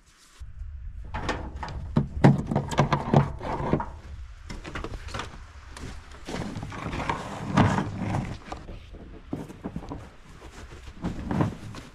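Footsteps crunching through snow, with knocks, a door and the rustle and drag of an extension cord being handled, over a steady low rumble that starts about half a second in.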